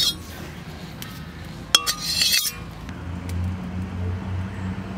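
A metal ladle clinking and scraping against an empty metal wok, with one sharp ringing clink just under two seconds in. A low steady hum follows in the second half.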